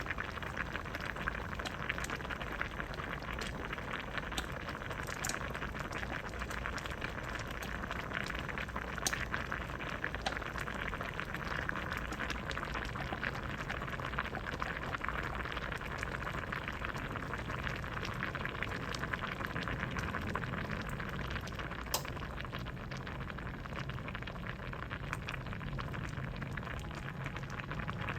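Vegetable soup boiling in a pot: steady bubbling with many small pops.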